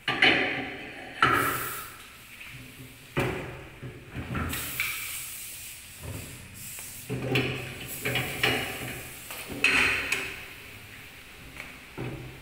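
Metal clanks, knocks and scraping as a car wheel is fitted onto a wheel balancer's shaft and clamped tight with its wheel lock: a string of separate knocks, some with a short ring after them.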